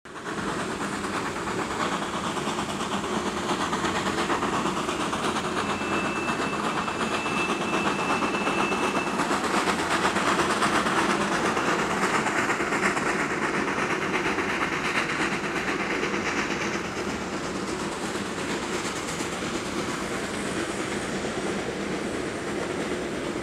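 Geared Shay steam locomotive and its passenger cars running on the track, a steady clatter of wheels and running gear that grows louder partway through and eases off again later. A thin high squeal sounds for about three seconds.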